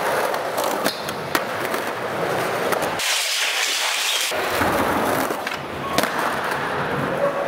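Skateboard wheels rolling on a smooth concrete floor, with a few sharp clacks of the board.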